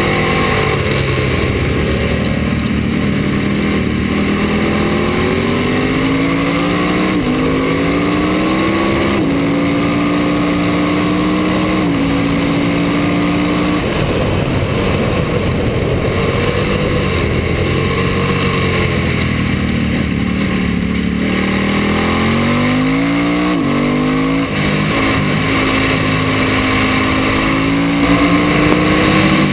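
Ducati twin-cylinder race bike heard onboard at racing speed: the engine revs climb and drop sharply at each upshift, then fall as it slows with quick downshift blips for a corner before climbing steadily again as it drives out. Wind rush over the bike runs underneath throughout.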